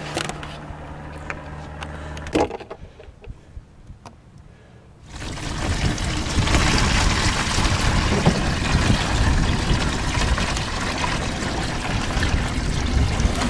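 Water pouring and splashing into a plastic bucket, starting about five seconds in and running on steadily. Before it there are a low hum that stops suddenly and a few light knocks.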